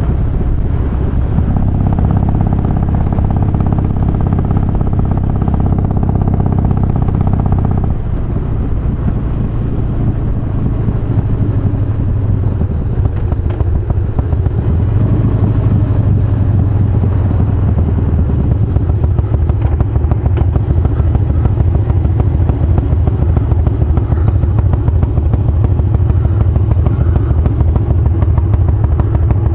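Harley-Davidson Softail's Twin Cam 88 V-twin, fitted with Feuling 525 cams, running. The engine note is louder and higher for the first several seconds, drops off suddenly about eight seconds in, then runs on steadily.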